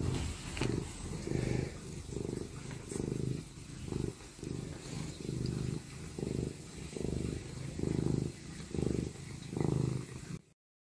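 Tabby cat purring steadily, the purr swelling and easing a little more than once a second with its breathing; it cuts off suddenly near the end.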